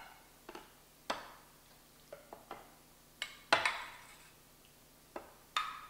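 A metal spoon clinking against a metal measuring cup as mango chunks are scooped into it. About ten sharp, irregularly spaced clinks, each with a short ring, the loudest about three and a half seconds in.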